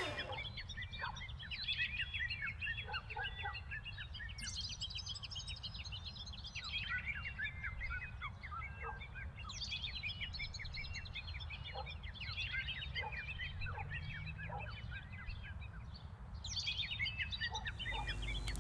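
Many birds chirping at once, a dense stream of short high calls with a few lower notes, over a low steady hum.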